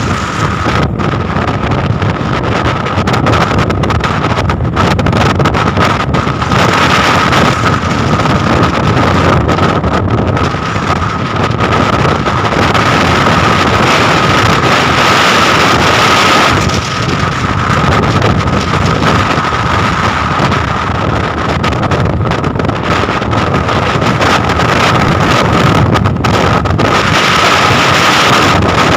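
Storm wind buffeting the microphone aboard a longline fishing boat, over the steady noise of the vessel and the sea, with a thin high whistle held throughout.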